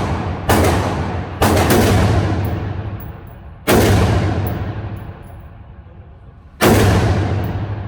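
AR-15 rifle firing four single shots at uneven intervals. Each sharp report is followed by a long echoing tail.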